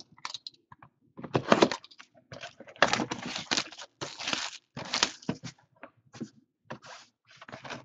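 Plastic shrink-wrap being torn and crinkled off a sealed cardboard trading-card box, in irregular crackling bursts.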